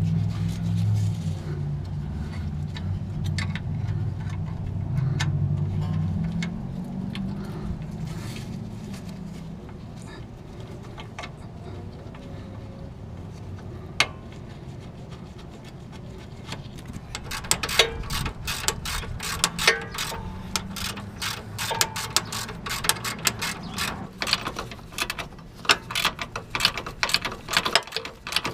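A low steady hum fades out over the first six seconds. From a little past halfway, quick metallic clicks and clinks come from hands and tools working on the steering rack's tie rod.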